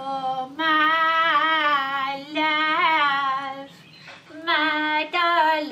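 A woman's voice singing long held notes in a few short phrases with brief breaks between them, with no instruments underneath.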